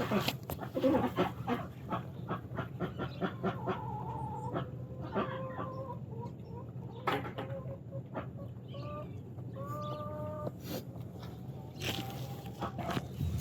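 Chickens clucking and giving short calls, with scattered clicks, over a steady low hum.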